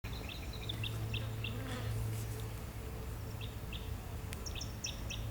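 Birds chirping: runs of short, quick chirps, with a gap in the middle, over a steady low hum.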